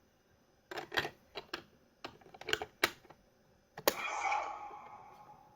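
Plastic clicks and clacks from a Zenkaiger Geartlinger toy transformation gun being handled and worked. About four seconds in, a sharp click sets off its electronic sound effect, which fades away.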